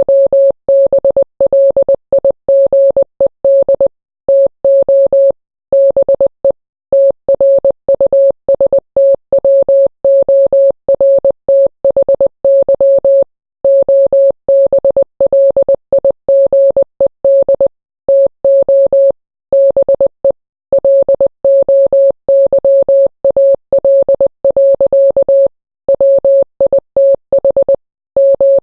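Morse code: a single steady mid-pitched beep keyed on and off in short dots and longer dashes, with brief silences between letters and words.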